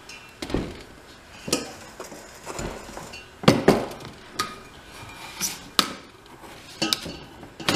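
A metal measuring cup clinking and knocking against a glass canister as brown sugar is scooped out, in a series of irregular sharp taps.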